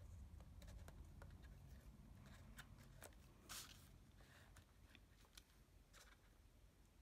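Faint handling sounds of small paper craft pieces and rhinestones: scattered light clicks and taps, with one brief rustle about halfway through, over a low room hum.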